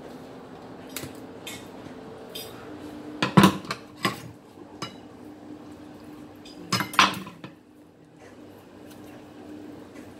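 Kitchen scissors and a knife clattering and knocking against a wooden cutting board as they are put down and picked up while raw chicken breast is trimmed. There are sharp clatters about three seconds in, a smaller one near four seconds, and another pair around seven seconds.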